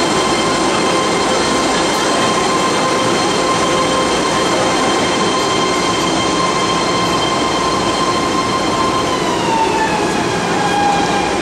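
BART train pulling into a station platform: steady rolling rail noise under a high whine, the whine dropping in pitch from about nine seconds in as the train slows toward a stop.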